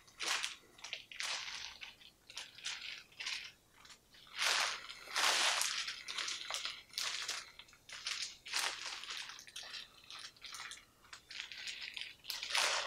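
Disposable isolation gown and surgical mask ties rustling and crinkling in irregular bursts as the mask's strings are tied behind the head with the arms raised.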